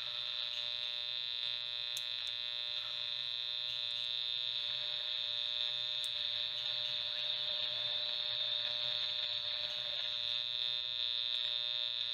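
1964 Panasonic R-8 transistor radio running on bench power, its speaker putting out a steady buzzing hum with a strong high whine and a few faint clicks: a lot of noise instead of a clear station.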